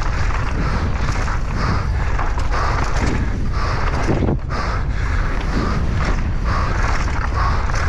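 Wind buffeting an action camera's microphone during a mountain-bike ride, a steady low rumble mixed with tyre and bike rattle that pulses about twice a second.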